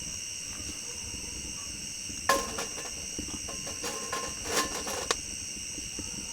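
Crickets chirring steadily at night. A loud clatter comes about two seconds in, followed by a few more knocks and a sharp click over the next three seconds.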